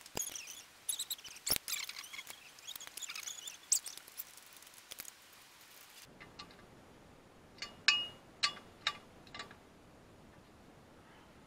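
Small metallic clicks, ticks and scrapes of hand tools and bolts being worked on a car's clutch pressure plate, with faint high chirping through the first half. A few sharp clicks come together about two-thirds of the way in and are the loudest sounds.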